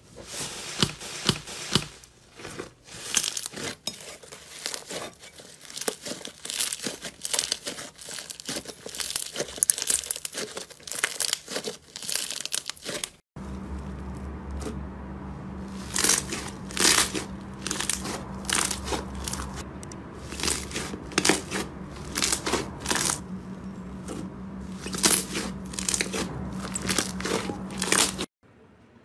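Hands pressing, squeezing and stretching slime: a dense run of sticky crackles and pops. About halfway through it cuts to another slime being pressed, with the pops over a steady low hum.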